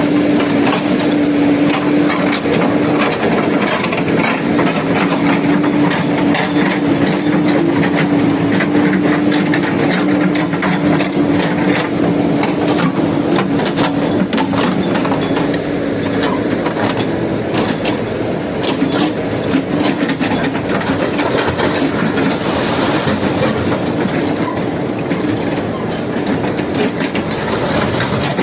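Backhoe loader's diesel engine running steadily under work, with a steady drone that eases about halfway through and constant metallic clanking and rattling from the machine.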